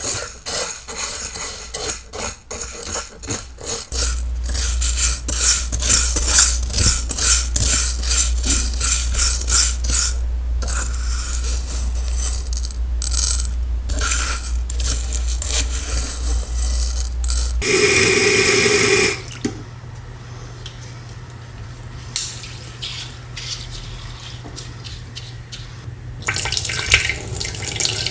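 Kitchen sink work: water running and splashing, with clinks and rattles of a bowl, pot and utensils. A steady low hum runs through the middle, with one brief louder burst, and water runs from the tap again near the end.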